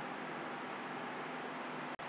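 Steady hiss of background noise with a faint low hum, briefly cutting out near the end.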